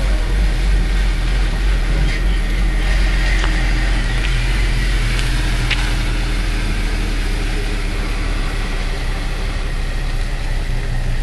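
A Jaguar S-Type's engine idling steadily as the car creeps slowly across a car park, with a few faint ticks in the first half.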